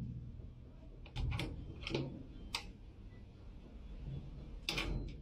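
Sharp metallic clicks and knocks from a rim lock and latch on a metal hatch door as it is worked and the door is pulled open, a few scattered clicks with a louder clack near the end.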